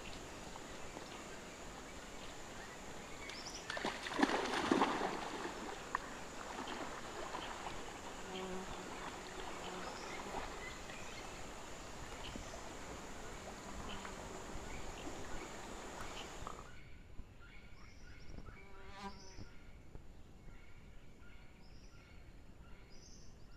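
Steady high-pitched insect whine over a hiss of background noise, broken about four seconds in by a louder noisy burst. About two-thirds of the way through the sound cuts away to a quieter background with scattered short chirps.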